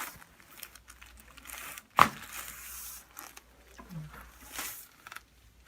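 A single sharp crack about two seconds in: the joints of the upper cervical spine popping under a chiropractic neck adjustment. Soft rustling comes before and after it.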